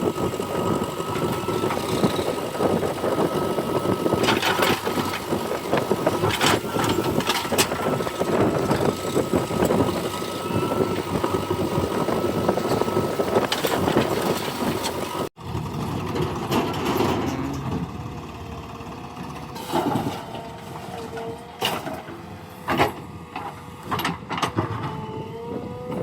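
JCB 3DX backhoe loader's diesel engine running under working load, with scattered knocks and clatter. About halfway through the sound cuts abruptly, then the engine comes back quieter, its pitch rising and falling as it revs, with more knocks.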